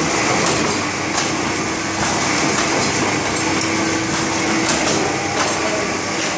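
Stahl BL 200 hardcover bookbinding line running: steady, dense machine noise with scattered light clicks and a faint steady hum.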